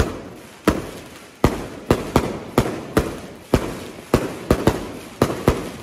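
Daytime aerial fireworks (festa petards) bursting overhead: a rapid, irregular series of about fifteen sharp bangs, two to three a second, each trailing off in a short echo.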